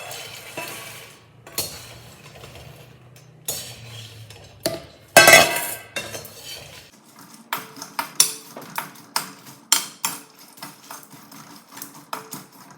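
Roasted makhana (fox nuts) tipped into a metal kadai, with a loud rattling rush about five seconds in. From about seven seconds on, a metal spoon clinks and scrapes against the kadai in quick strokes as the makhana is tossed with the ghee and spices.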